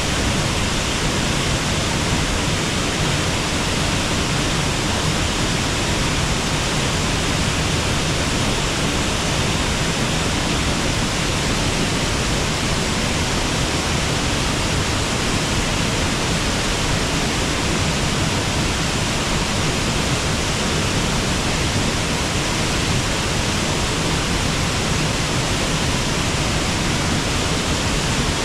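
Water rushing steadily over a river waterfall, a constant even hiss with no breaks or separate sounds.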